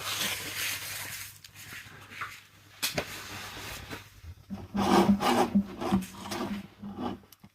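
Scraping and rubbing on a hard plastic bottle, cleaning up the area around a crack before welding it. A quick run of short rasping strokes, about three a second, comes in the second half.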